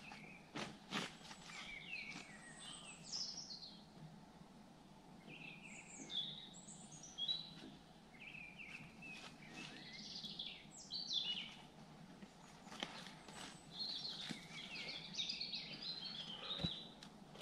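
Small songbirds singing: many short chirping phrases, overlapping and repeating throughout. A few faint crunches of footsteps on bark shavings are mixed in.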